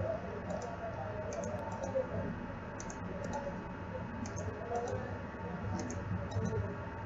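Computer mouse buttons clicking repeatedly, often in quick pairs, over a steady low background hum.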